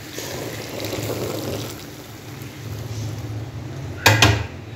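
Hot caramelised sugar syrup poured from a pan into a pot of simmering kheer, a steady pouring and bubbling noise as the milk foams. Two sharp knocks come about four seconds in.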